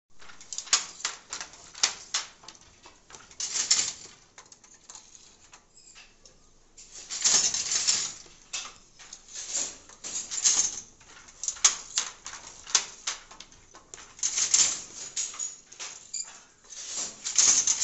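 Wooden handloom weaving: irregular sharp clacks of the beater and shuttle, with about five rustling swishes, each about a second long, as the beater is swung through the warp threads.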